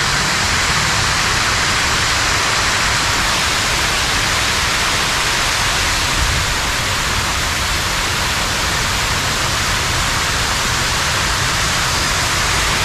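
Fountain jets and a curtain of water falling from a wall splash into a pool: a loud, steady rush of water.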